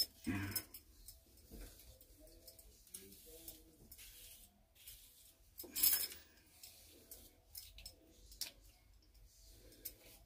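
Faint rustling and scratching of long hair being gathered up and handled by hand, with scattered light clicks and one short, louder rustle about six seconds in.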